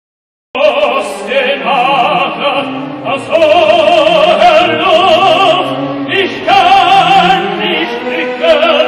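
Operatic tenor singing in German with a wide vibrato over orchestral accompaniment, coming in suddenly about half a second in after silence.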